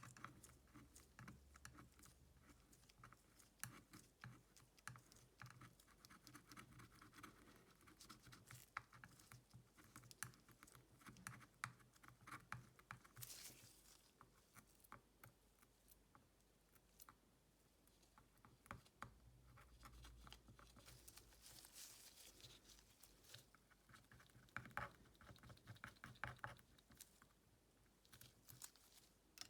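Faint, irregular small clicks, taps and scrapes of hand tools working on a smartphone, with a short scraping hiss about halfway through and again about three quarters of the way in.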